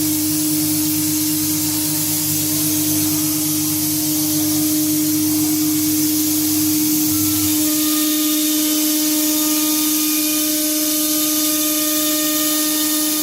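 A 1325 CNC router's spindle running with a steady whine over a hiss while it engraves a wooden door. About halfway through, a low hum from the machine stops and a set of higher steady tones comes in, as the machine's motion changes.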